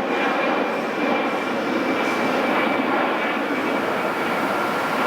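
Steady jet aircraft engine noise with a faint high whine.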